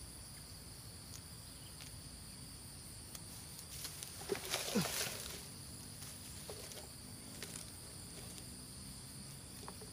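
Steady high-pitched insect chorus at two pitches, faint throughout, with a short burst of rustling and handling noise about four to five seconds in.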